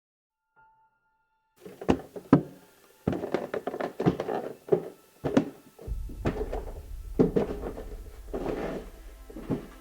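A series of sharp thuds and knocks, some in quick pairs, with rougher scraping noise between them. A low, steady musical drone comes in about halfway through.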